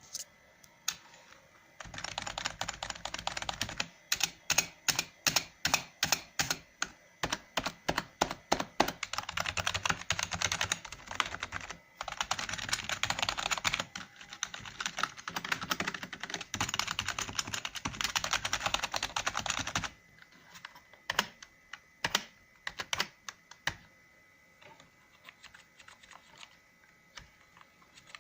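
Typing on a Sven 9100 membrane keyboard. Stretches of fast, continuous typing alternate with slower runs of single, separate keystrokes. After about 20 seconds it thins to a few scattered key presses.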